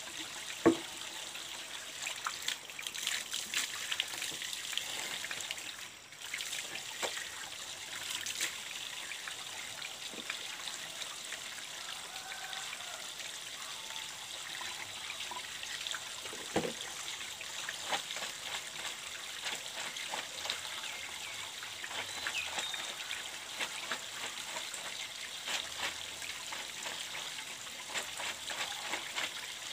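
Water trickling steadily from the end of a plastic PVC pipe onto the wet ground, with occasional splashes and short knocks as hands and a plastic bucket are worked in the water; the sharpest knock comes about a second in.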